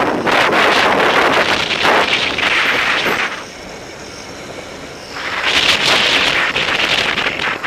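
Wind rushing over a helmet camera's microphone on a moving velomobile, with road noise. It drops away for under two seconds in the middle, then comes back as loud as before.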